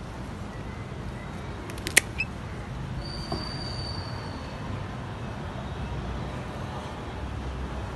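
Pruning shears snipping through an okra pod's stem: one sharp click about two seconds in, over steady low background noise.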